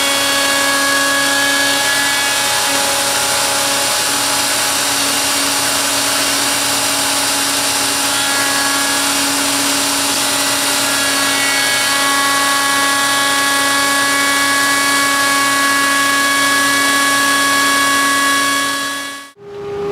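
Plunge router running steadily at full speed as it cuts into a hardwood board, a high whine over the noise of the bit, with dust extraction attached. It cuts off abruptly near the end.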